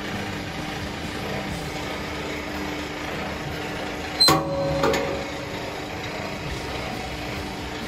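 Steady motor hum of a twin-shaft paddle mixer running, with two sharp knocks about half a second apart a little past the middle.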